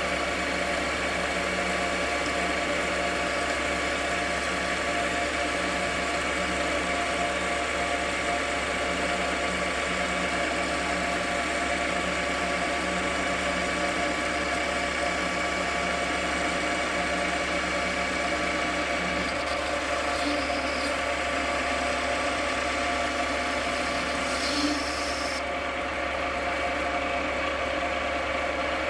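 JFMT metal lathe running steadily under power during a heavy 3 mm deep roughing cut on a stud, its drive giving a steady whine of several tones over a hiss. A lower tone stops about two-thirds of the way through, and the high hiss drops away near the end.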